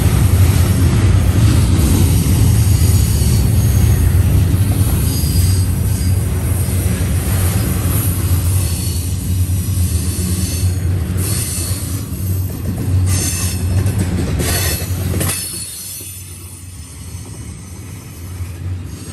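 Double-stack intermodal well cars rolling past at close range: a steady heavy rumble of wheels on rail, with faint wheel squeal and sharper high screeches from the wheels between about 11 and 15 seconds in. The rumble drops off suddenly about three-quarters of the way through.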